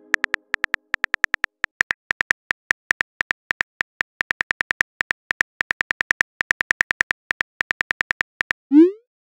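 Smartphone on-screen keyboard tap clicks, several a second, as a text message is typed. They stop near the end, followed by a short rising swoosh: the message-sent sound.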